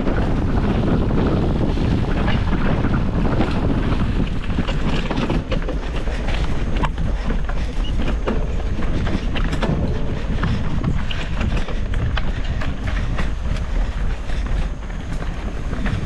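Wind buffeting the microphone of a mountain bike rider's camera while riding down a dirt singletrack trail, with the tyres rumbling over the ground and many quick clicks and rattles from the bike on rough terrain. The wind rumble is heaviest in the first few seconds and eases after about five seconds.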